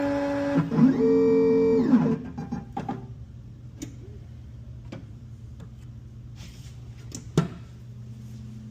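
Guitar background music that stops about two seconds in, followed by a low steady hum with a few sharp clicks, one louder click near the end.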